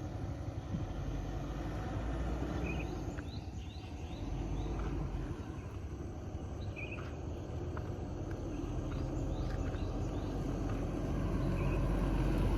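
Steady low rumbling noise with faint, short, high chirps now and then, cutting off abruptly at the end.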